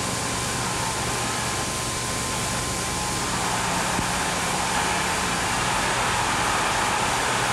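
Steady noise of a large arena crowd, heard through the hiss and hum of an old broadcast recording; the crowd grows a little louder about halfway through.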